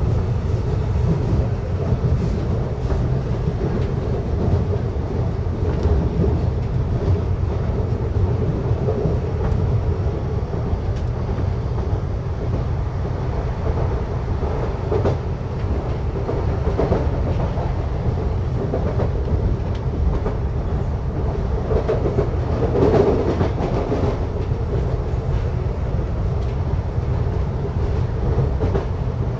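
Electric commuter train running at speed, heard from inside the carriage: a steady low rumble of wheels on rails, with faint clicks from the track and a slight swell a little past two-thirds of the way through.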